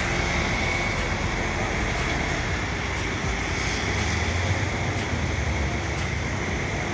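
City road traffic: a tour coach driving past amid cars and motor scooters, with a low engine rumble that swells about four to five seconds in.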